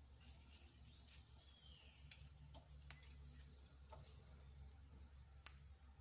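Near silence: a steady low room hum with a few faint clicks of hands handling semolina dough at a bowl, two of them sharper, about three seconds and five and a half seconds in.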